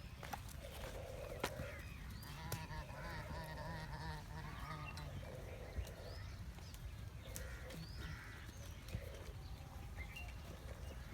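Several goats bleating in turn. The calls overlap, and a long quavering bleat runs from about two to five seconds in.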